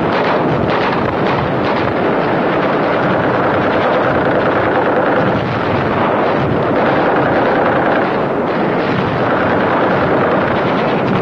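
Loud, steady roar of battle noise: a rumbling din with muffled blasts of artillery and gunfire mixed in.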